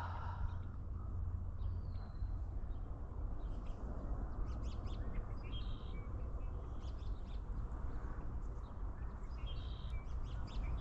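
Birds chirping with short, high calls repeated throughout, over a steady low rumble.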